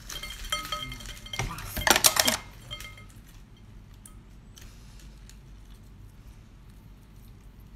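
A utensil clinking and scraping against a glazed ceramic bowl while stirring a heap of mantis shrimp: a quick flurry of clinks with brief ringing, loudest around two seconds in. After about three seconds only a few faint ticks remain.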